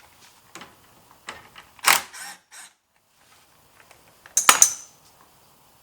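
Metal tools and small metal parts clinking and tapping as a bolt or clamp is worked loose, with two louder clinks about two seconds in and about four and a half seconds in and lighter ticks between.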